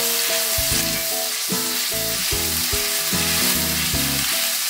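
Hot oil sizzling as a wet masala paste of blended onion, yogurt and tomato with spices fries in a wok, stirred round with a silicone spatula. Background music plays underneath.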